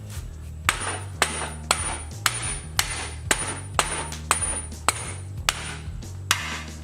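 Hammer striking steel suspension parts, about two blows a second, each with a bright metallic ring, as the front suspension is knocked apart.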